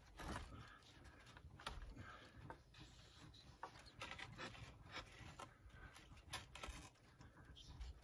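Near silence with faint, irregular soft clicks, scrapes and rustles.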